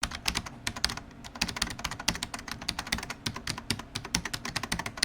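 Computer keyboard typing: rapid, irregular key clicks, several a second.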